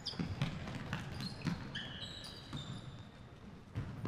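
Futsal play on a hardwood gym floor: several short sneaker squeaks, scattered footfalls and ball thuds, ringing in a large hall. A louder thud comes near the end.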